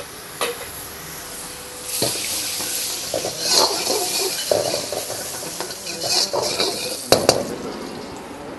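Butter sizzling and frying in a large metal wok, the hiss swelling suddenly about two seconds in, with a metal ladle clanking on the pan, twice in quick succession near the end.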